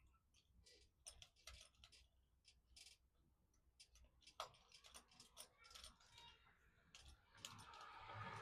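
Near silence broken by faint, scattered clicks and light taps of door lock hardware being handled, with a soft rustle building near the end.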